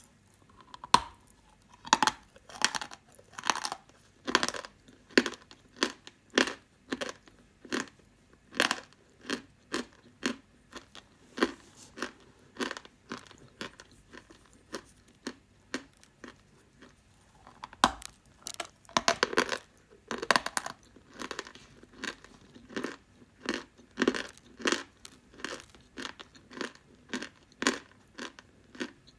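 Dry clay crunching: a steady series of short, crisp crunches, about one or two a second, with a denser flurry about two-thirds of the way through.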